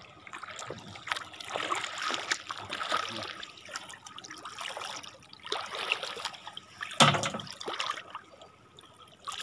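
Shallow seawater splashing and sloshing around wading bare feet and a floating plastic container dragged on a rope. There is a sudden loud hit about seven seconds in.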